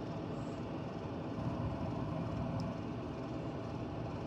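A wooden spoon stirring thick melted cheese in a stainless steel saucepan, over a steady low background noise.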